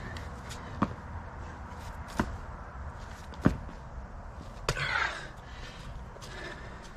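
Hands and feet slapping and thudding on an asphalt driveway during a burpee: four sharp thumps, the loudest a little past three seconds in, with a short scuffing rush just before five seconds in as he jumps back up.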